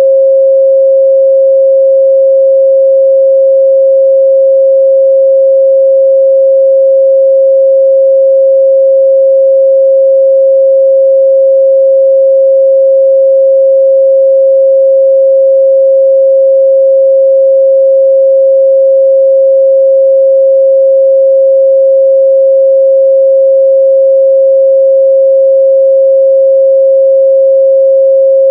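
A steady 538 Hz sine-wave test tone, one pure pitch held at an unchanging loud level.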